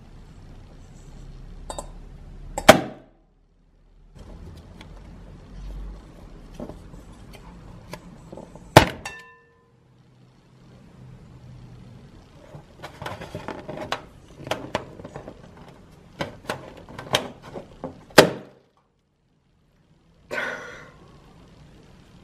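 Glue-filled balloons cut open with scissors over a stainless steel bowl: sharp pops about 3, 9 and 18 seconds in, the bowl ringing briefly after the second. Smaller clicks and wet splats from the spilling glue and balloon skins come between, and a softer splat near the end.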